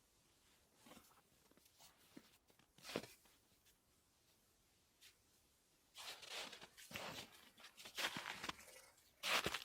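Irregular crunching steps on snow, quiet at first with a single sharp click about three seconds in, then louder and closer together from about six seconds in.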